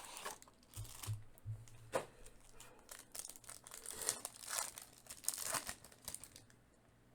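Foil wrapper of a trading-card pack being torn open and crinkled by hand, an irregular crackling rustle that stops near the end.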